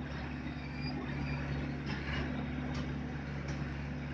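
Heavy diesel engines of a Komatsu excavator and a dump truck running steadily while the excavator swings back from loading, with a few faint clicks.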